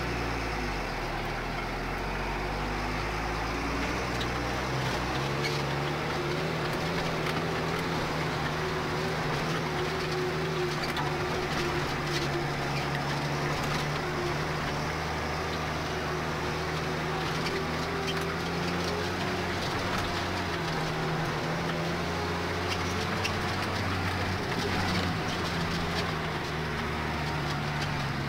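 New Holland T6050 tractor engine running steadily under load as it pulls a loaded dung spreader across the field, heard from inside the cab. The engine note shifts slightly about five seconds in.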